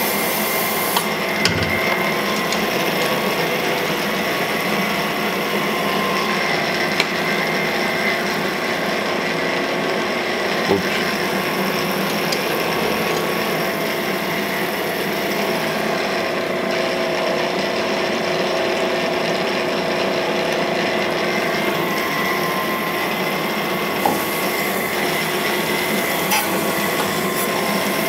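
Cam grinder's abrasive wheel grinding the intake lobes of a solid roller FE Ford camshaft under flowing coolant: a steady grinding hiss over a machine hum, with a few faint ticks.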